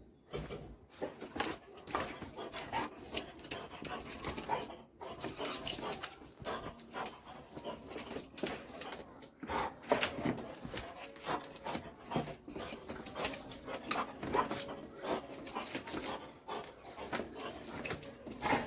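Doberman panting in short, irregular bursts.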